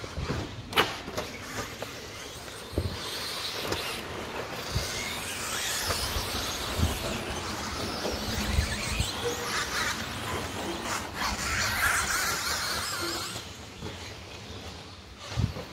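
Electric 2WD RC stadium trucks racing on a dirt track: a high whine of motors and tyres that swells and fades as the trucks pass, with several sharp knocks scattered through it.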